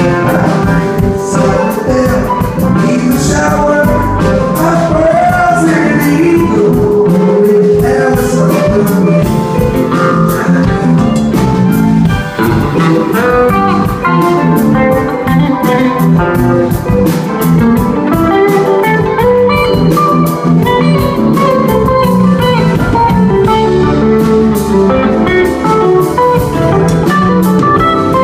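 Rock band playing live: an electric guitar takes a lead line with bent notes over bass and a drum kit.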